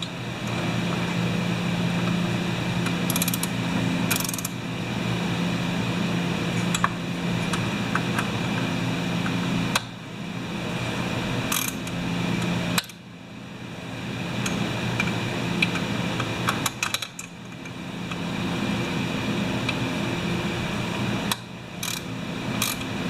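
A small machine running with a steady mechanical hum. It cuts out briefly four times and each time starts up again, building back up, with a few sharp clicks in between.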